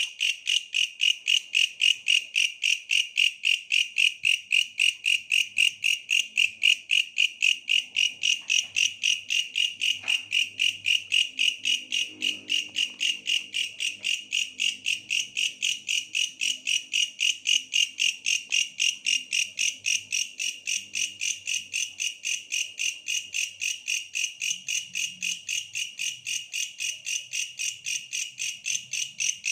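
Tree grasshopper (belalang pohon) singing a long, steady series of evenly spaced high-pitched pulses, about three a second, without a break.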